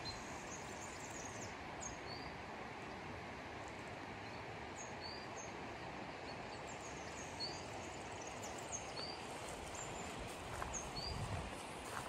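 Steady rush of a mountain stream, with a small bird repeating a short high chirp about once a second over it. A few footsteps on the gravel track are heard near the end.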